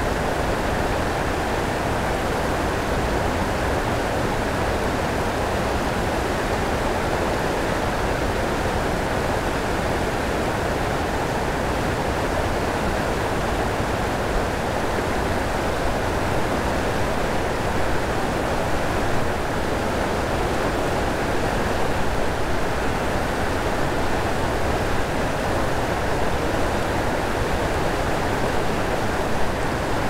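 Waterfall and river water rushing in a steady, unbroken wash with a low rumble underneath.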